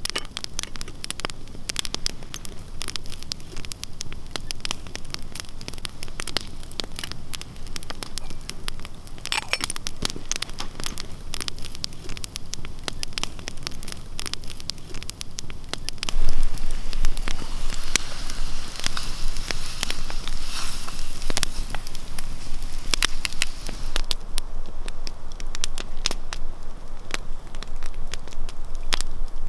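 Wood campfire crackling, with many sharp pops over a steady hiss; it gets louder about halfway through.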